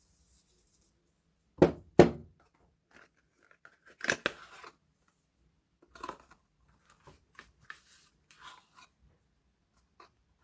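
Soap packaging being handled and unpacked: two sharp knocks about a second and a half in, then a crunchy burst of tearing and crinkling, and scattered soft rustles.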